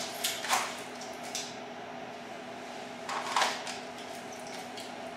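A few brief rustling scrapes as a jacket is swept aside and an XDm pistol is drawn from and pushed back into a cowhide outside-the-waistband holster, over a steady faint hum.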